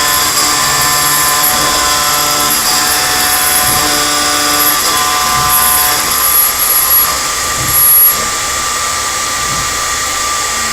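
Milling machine running a high-feed cutter through steel: a steady spindle whine with several held tones under high-pitched cutting noise. The noise surges around six to eight seconds in, then drops to a quieter, steadier whine.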